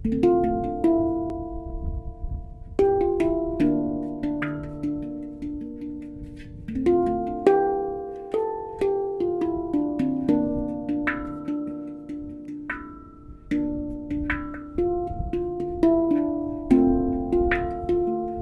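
Handpan played with the hands: a flowing melody of struck steel notes, each with a sharp attack that rings on and fades, overlapping one another at an unhurried pace.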